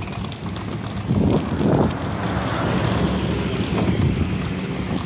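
Wind rushing over the phone's microphone while moving at speed: a steady rush with a low hum beneath, buffeting louder about a second in and again near two seconds.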